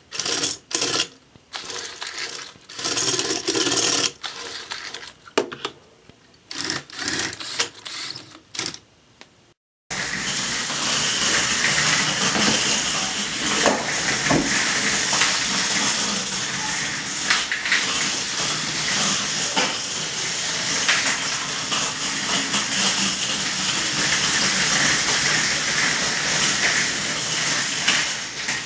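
For the first ten seconds, short separate clicks and rattles of plastic Lego remote controls being handled. Then a steady hissing whir with scattered knocks from small Lego omniwheel race cars driving over a vinyl tile floor.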